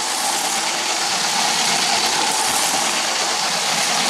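LEGO City High-Speed Passenger Train running at top speed around a loop of plastic track: a steady electric motor whine over a constant rattle of the wheels on the track.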